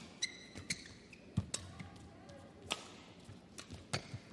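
Badminton rally: sharp racket strikes on the shuttlecock every second or so, mixed with shoe squeaks and footfalls on the court mat, including a short high squeak near the start.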